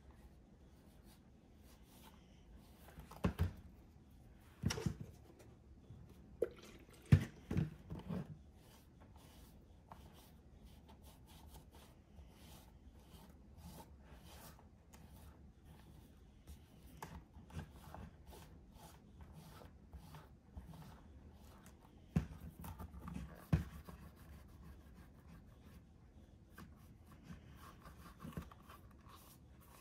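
Quiet rubbing of an alcohol-dampened cotton ball on a patent leather shoe as the dye's top layer is wiped off. A few short clusters of knocks and taps from the shoe being handled stand out, several seconds in and again about two-thirds of the way through.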